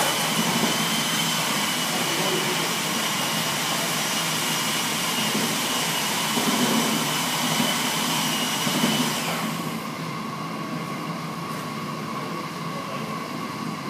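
Steady machine noise, a whirring hiss with a faint high whine, that drops off about nine and a half seconds in, leaving a quieter hum.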